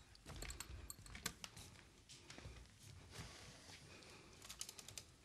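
Faint scattered clicks and taps, clustered about a second in and again near the end: footsteps and the small knocks of a wine bottle and glasses being carried.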